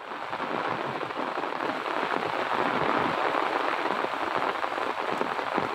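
Heavy rain falling steadily, a dense even patter of drops on wet pavement and standing water.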